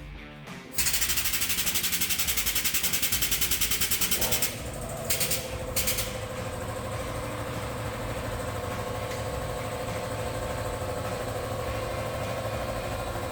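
A machine rattling rapidly, about eight beats a second, for a few seconds. It gives way to a steady, even-pitched motor hum, broken by two short bursts soon after the change.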